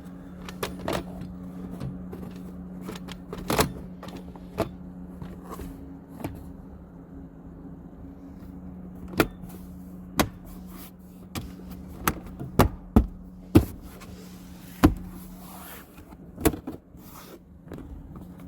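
Sharp separate clicks and knocks, a dozen or so and more frequent in the second half, from the interior trim panel and its clips being worked by hand. A steady low hum runs underneath.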